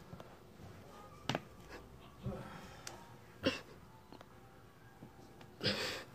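A person's forceful breaths puffed out during push-ups: three short, sharp exhales about a second apart, then a longer breathy exhale near the end.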